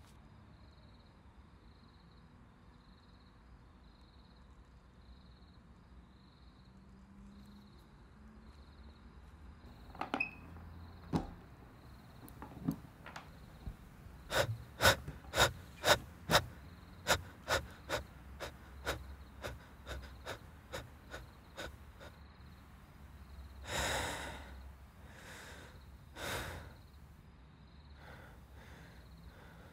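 A man's sharp gasping breaths: a quick run of short gasps, about two a second, that grows fainter, then a few longer gasps near the end.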